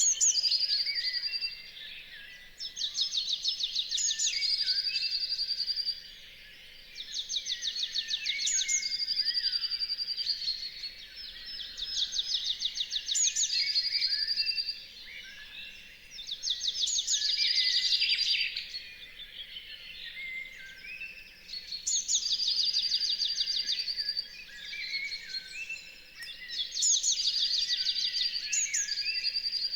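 Dawn chorus of songbirds. One loud bird repeats its song about every four to five seconds: a fast rattling trill ending in a held high note, with softer calls from other birds in between.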